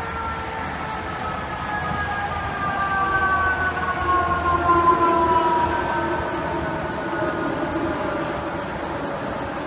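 Fire truck siren sounding a long tone that falls slowly in pitch, growing louder to a peak about halfway through as the truck passes, then easing off. Engine and road rumble run underneath.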